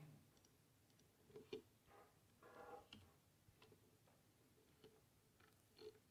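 Near silence: room tone with a few faint, scattered clicks and taps, and a brief faint pitched sound about two and a half seconds in.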